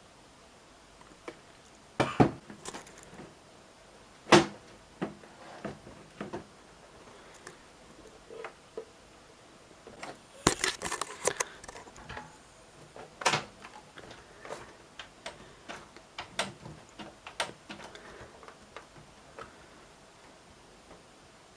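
Irregular clicks, knocks and light rattles of computer hardware being handled: metal and plastic parts of a desktop case and optical drive being worked on by hand. The loudest knocks come about two and four seconds in, with a burst of rattling clicks around ten seconds in.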